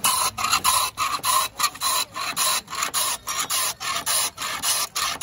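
Block of ice pushed rapidly back and forth over the blade of a hand ice-shaving box, each stroke a loud rasping scrape, about four strokes a second, as ice is shaved into a cup for shaved-ice dessert.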